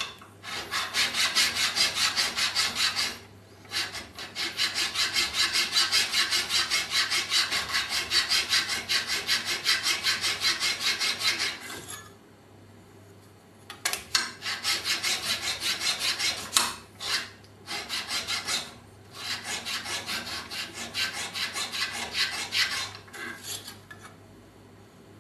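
A steel card scraper's edge is rubbed back and forth along a bastard file clamped in a vise, with quick, even rasping strokes. This is the jointing and squaring of the scraper's long edge before sharpening. The strokes come in long runs, with a pause of about two seconds midway and a few short breaks later.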